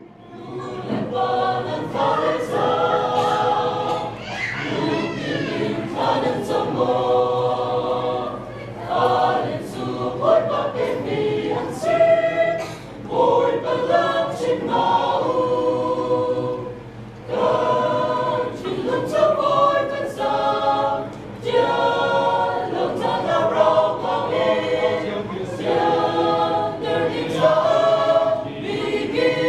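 Mixed choir of men and women singing a hymn, in sustained phrases with brief pauses for breath between them.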